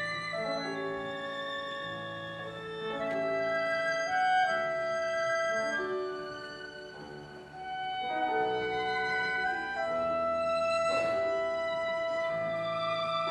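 Symphony orchestra playing classical music: violins carry the melody over held notes, with woodwinds such as flute and clarinet; it softens briefly midway, then swells again.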